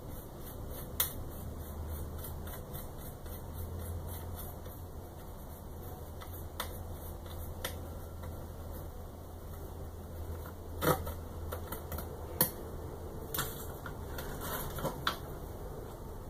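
Scattered small clicks and taps of metal hardware being handled: M3 screws, springs and wing nuts being fitted to a 3D printer's heat bed. The clicks come more often in the second half, over a steady low hum.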